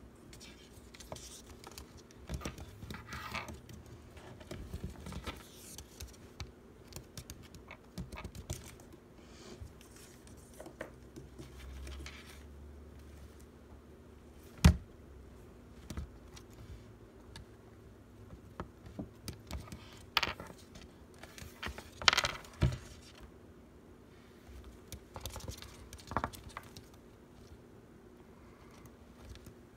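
Close, irregular scratching, clicking and rustling of a small pet scrabbling and nibbling at treats while they are handled. There is a sharp knock about halfway through and a run of louder scrapes a little past two-thirds of the way.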